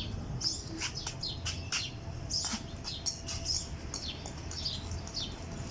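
Small birds chirping: a continuous run of short, high chirps, several a second.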